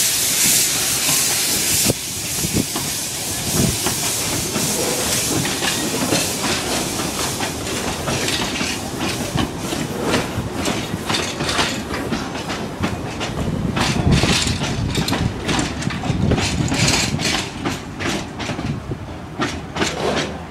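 Narrow-gauge steam locomotive hissing loudly with escaping steam, which cuts off abruptly about two seconds in. Then its carriages roll past with a low rumble and wheels clicking over the rail joints.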